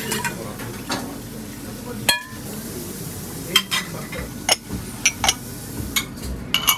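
Kitchenware being handled: a run of sharp clinks and knocks as ceramic cups and lids and metal utensils are set down, some ringing briefly, over a steady kitchen hiss with a little frying.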